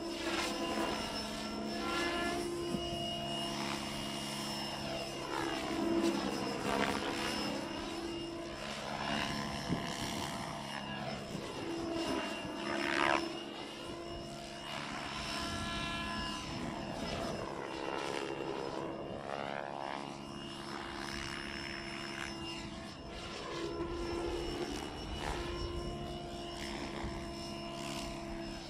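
Radio-controlled model helicopter flying aerobatic manoeuvres: a steady rotor and motor hum, with a whine that repeatedly sweeps up and down in pitch as the helicopter flips and passes.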